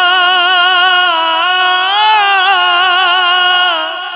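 A man singing a naat unaccompanied, holding one long ornamented note whose pitch wavers up and down, fading away near the end.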